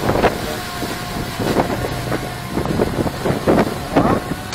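DJI Mini 2 drone hovering close by, its propellers giving a steady whine, with gusts of wind buffeting the microphone.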